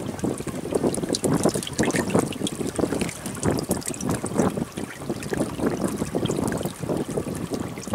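Water splashing irregularly as several hooked river fish thrash at the surface against the side of a wooden boat while the line is pulled in.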